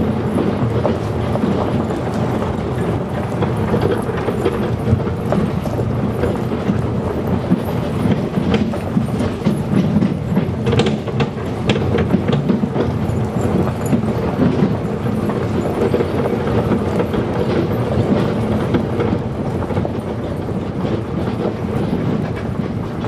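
Dog sled rig on wheels rolling fast over a gravel trail behind a running sled-dog team: a steady rattle and crunch of wheels and frame on gravel, with scattered sharp clicks.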